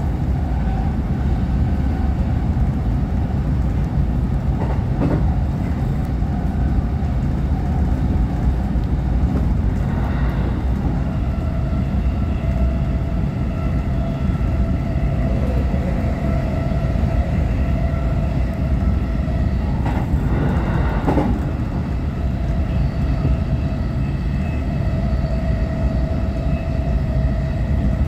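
Electric commuter train running on the rails, heard from inside the front car: a steady low rumble of wheels on track with a steady high whine over it and a few brief louder swells.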